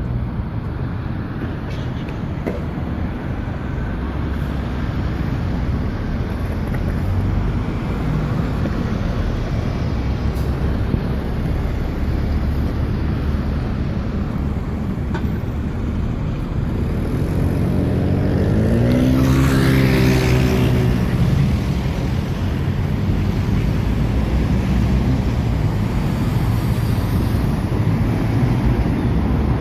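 Steady rumble of busy city road traffic with buses. About two-thirds of the way through, one vehicle passes close: its engine note rises and then falls as it goes by.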